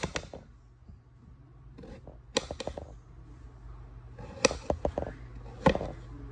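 Kitchen knife cutting raw potatoes, the blade knocking sharply on the cutting board in a few short clusters spaced a second or two apart.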